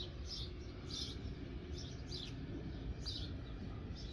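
A small bird chirping: short high chirps repeating about twice a second, over a low steady background noise.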